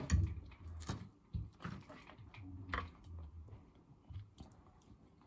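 A woman chewing a mouthful of breaded meat cutlet close to the microphone: soft, irregular mouth sounds with a few sharp clicks.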